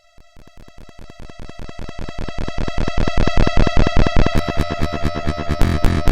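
Electronic synthesizer music: a fast, even pulse that swells steadily in loudness, with low bass notes coming in about four seconds in.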